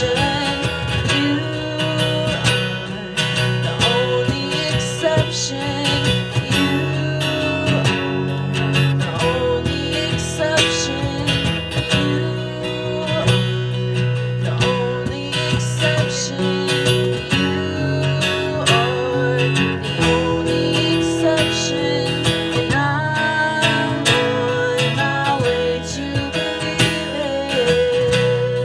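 Live band music: a woman singing into a microphone over strummed acoustic guitar, with electric guitar and keyboard, played through PA speakers.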